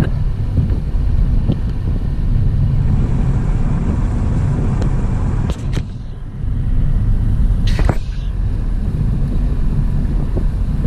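Steady low rumble of a car's road and engine noise heard from inside the cabin while driving, with a few brief knocks about halfway through.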